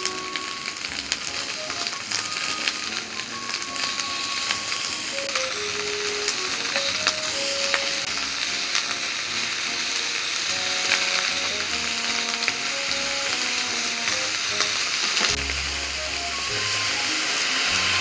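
Food sizzling and frying in a hot pan, a steady crackling hiss, under light background music.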